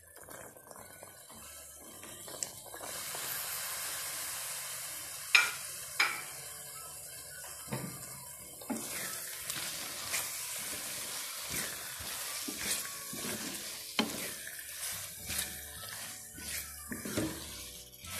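Potatoes, radish pods and fresh peas sizzling in masala in a karahi while a wooden spatula stirs them, with a steady frying hiss and repeated knocks and scrapes of the spatula against the pan, the loudest about five and six seconds in.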